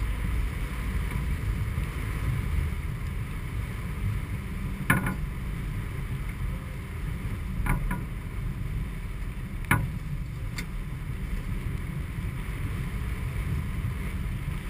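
Steady rush of water along the hull of a Whitby 42 sailboat heeled under sail, with wind on the microphone. Four sharp clicks come between about five and eleven seconds in.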